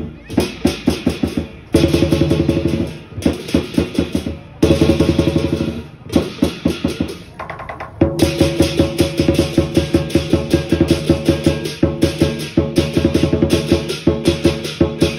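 Foshan-style lion dance percussion: a big drum beaten in quick, changing rhythms over a metallic crash wash that runs up into the highest pitches. It breaks off briefly a few times and plays softer for a while, then from about eight seconds in settles into a steady beat of about three strokes a second.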